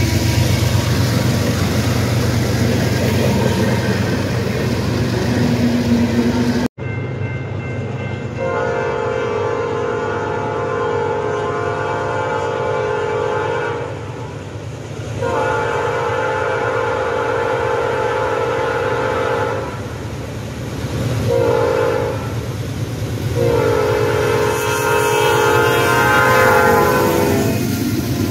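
Norfolk Southern diesel freight locomotives rumbling past close by. After a sudden cut, an approaching locomotive sounds its multi-tone air horn four times: long, long, short, long, the standard grade-crossing signal. The train then comes up and passes.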